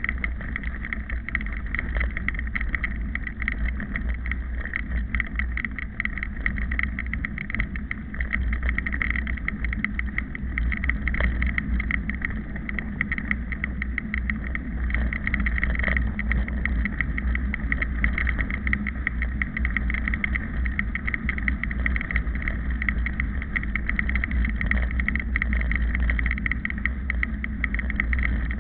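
Riding noise from a bike-mounted camera on a mountain bike rolling over a gravel dirt road: a steady low wind rumble on the microphone with constant fine rattling and crunch of tyres and camera mount.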